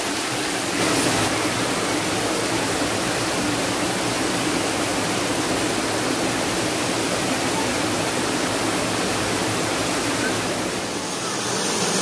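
Waterfall water rushing and splashing over rocks close by, a steady, dense rush of noise that eases slightly for a moment near the end.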